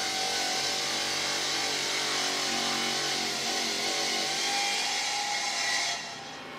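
Stone-cutting saw machine running, a steady grinding noise with a held motor whine. It drops away sharply near the end.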